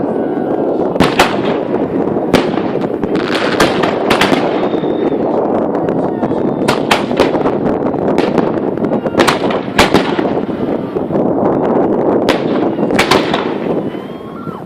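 Aerial fireworks display: a dense, continuous rumble of bursting shells, with sharp bangs standing out every second or so. It dies down near the end.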